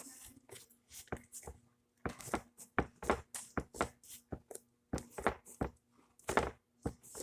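Homemade slime being kneaded and folded by hand, giving a string of short, irregular sticky clicks and pops.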